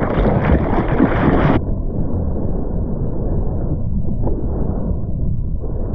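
Loud rush of wind and surf buffeting the microphone. About a second and a half in, the sound turns suddenly muffled, losing all its hiss.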